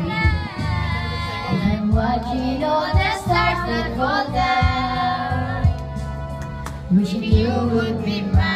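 A girl singing into a karaoke microphone over a backing track with a bass line and a beat about once a second.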